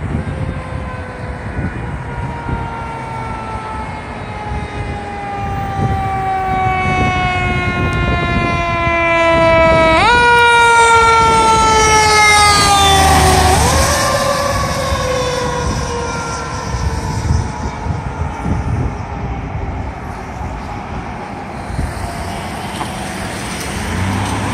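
Fire engine siren wailing as the pumper approaches and passes. Its pitch falls slowly, then shoots back up about ten seconds in and again a few seconds later. It is loudest as the engine goes by and then fades into traffic noise.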